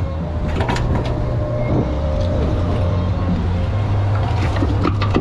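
Steady low rumble of wind buffeting the microphone on an open beach, with a few light clicks about a second in and near the end.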